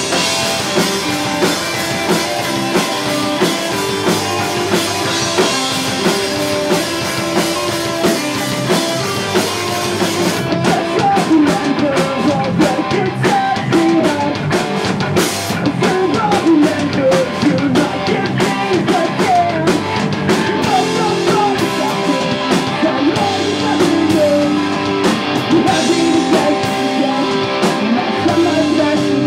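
Live pop-punk band playing loudly: drum kit, electric guitars and bass driving a full-band rock song. About ten seconds in the cymbal wash thins out, leaving separate drum hits under the guitars.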